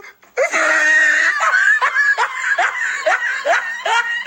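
A man laughing hysterically: a high strained cry, then repeated rising, squealing laugh bursts about twice a second.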